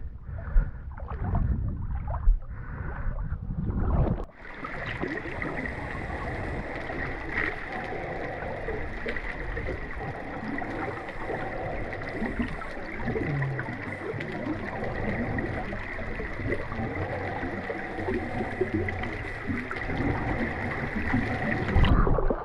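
Water sloshing and gurgling close around the camera of a swimmer in a spring run. About four seconds in it changes abruptly from muffled low splashing to a steady watery hiss with a faint high tone.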